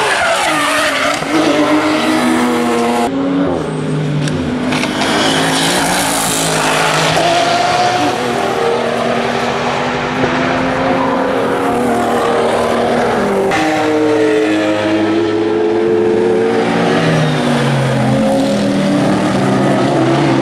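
Racing car engines, among them Porsche 911 GT3s, passing at speed one after another, their note rising and falling through gearshifts and lifts. The sound cuts abruptly twice as one pass gives way to the next.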